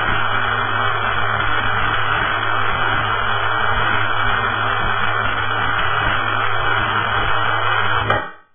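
Simulated short-circuit MIG (GMAW short arc) welding arc sound from a VRTEX 360 virtual welding trainer: a steady hissing buzz over a low hum while the arc is struck, cutting off suddenly about eight seconds in as the weld pass ends.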